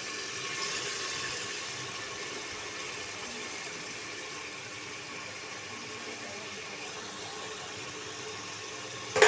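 Tomato, chilli and yogurt masala sizzling steadily in hot oil in a pressure-cooker pot while it is being fried down (bhuna).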